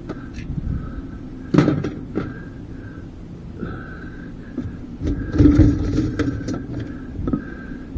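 Dishwasher being dismantled for scrap: scattered knocks and clatter of parts being handled, over an on-and-off whine, with a busier run of knocks past the middle.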